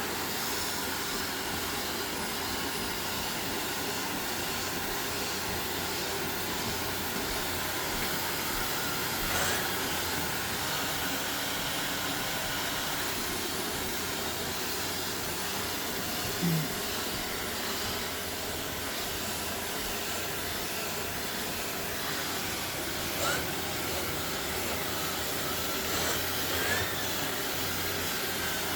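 Shark Navigator Lift-Away Pro upright vacuum cleaner running steadily while it is worked over bedding, with a few brief knocks along the way.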